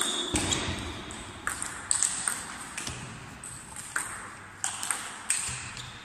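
Table tennis rally: the ball clicks sharply off the bats and the table, a hit every half second to a second, each with a short echo in a large sports hall.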